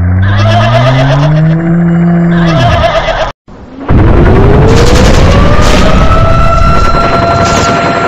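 Loud stock cartoon sound effects. A pitched, engine-like sound rises and then falls for about three seconds and breaks off. After a brief cut, a dense, noisy blast comes in with a tone that rises and then holds steady.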